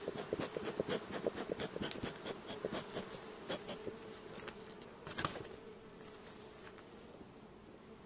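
Honeybee colony humming steadily over an open hive. A run of short soft ticks in the first half thins out, with one sharper tick about five seconds in.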